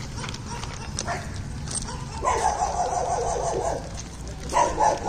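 Dogs barking: a rapid flurry of barks about two seconds in, then a few more barks near the end.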